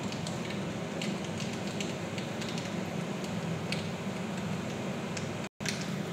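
Cumin and mustard seeds sizzling in hot mustard oil in a kadai, with scattered light crackles as the seeds begin to splutter, over a steady low hum. The sound cuts out for an instant near the end.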